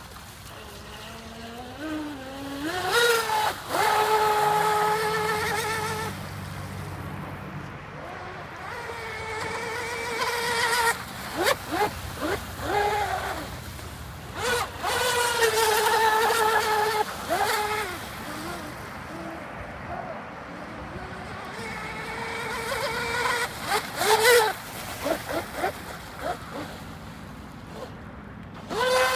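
Electric RC speedboat running on a 5S battery pack: a high-pitched motor whine that rises as the throttle opens, holds steady through each run and falls away between runs, several times over.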